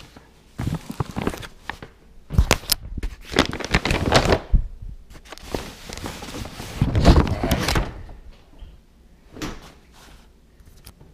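A paper shopping bag rustles and crinkles as a fur-hooded cargo jacket is pulled out of it and handled on a kitchen counter. There are a few sharp knocks among the rustling, which dies down after about 8 seconds.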